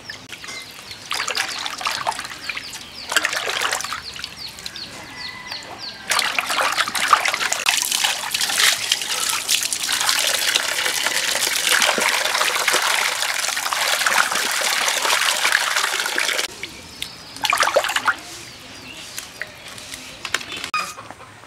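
Water splashing in short bursts as hands wash cut tilapia pieces in an earthenware bowl. Then a steady pour of water runs into the bowl for about ten seconds, followed by one more brief splash.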